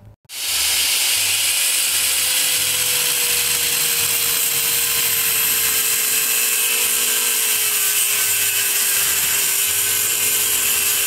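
Angle grinder with a cutoff wheel cutting through a steel drum-brake backing plate. It starts abruptly and runs steadily with a loud hiss of grinding, and its motor whine sinks slowly in pitch as the wheel is loaded in the cut.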